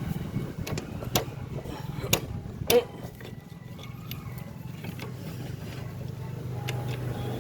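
Hand tools clinking on metal while a motorcycle clutch is taken apart: four sharp clinks in the first three seconds and a few faint ticks later, over a steady low hum.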